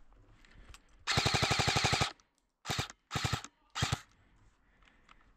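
Airsoft gun firing full-auto: one burst of about a second, then three short bursts in quick succession.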